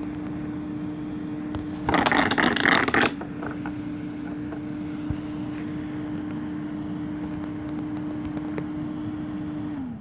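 The homemade air conditioner's electric fan motor runs with a steady hum, then drops in pitch and winds down as it is switched off near the end. About two seconds in, a loud burst of noise lasts about a second.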